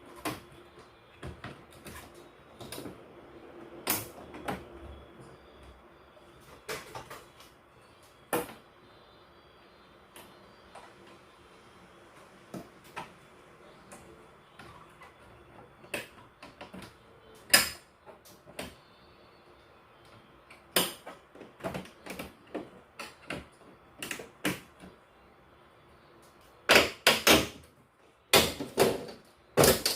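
Irregular clicks and knocks of hard objects being handled, coming more often in the second half, with a cluster of louder knocks in the last few seconds.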